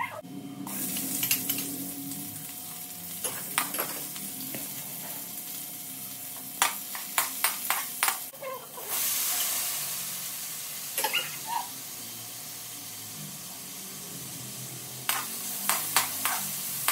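Chopped garlic, onion and tomato sizzling in hot oil in an aluminium wok, with a metal spatula scraping and clicking against the pan in short runs. The sizzle swells about nine seconds in, as more ingredients go into the pan.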